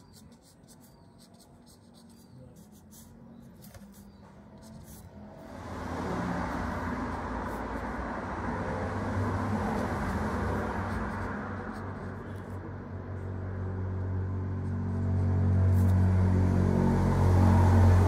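Faint scratching of a mechanical pencil on textured watercolour paper. About five seconds in, a steady motor rumble with a strong low hum sets in and drowns it out, growing louder toward the end.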